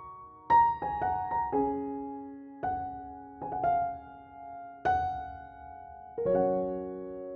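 Background music: slow, soft solo piano, single notes and chords struck about once a second and left to ring out, with a longer held chord near the end.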